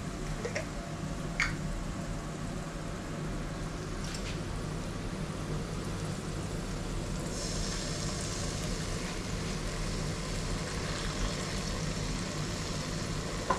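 Sweet chili sauce going into a hot wok of fried garlic and curry leaves, sizzling in the oil for a few seconds from about halfway through, then dying down. A few light clicks come before it, over a steady low hum.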